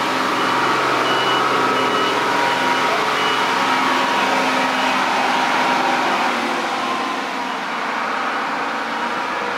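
A heavy vehicle runs steadily, and a high beep repeats about twice a second through the first few seconds.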